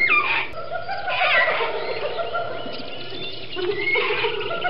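Animal calls over a steady background soundtrack: a sharp falling call opens, and another rising-and-falling call comes about a second in.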